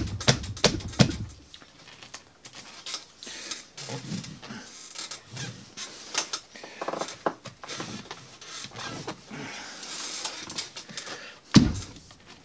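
Lacrosse head's mesh pocket being pounded: a quick run of thumps, about three a second, that stops after a second and a half. Quieter handling of the mesh with scattered taps follows, then one more hard thump near the end.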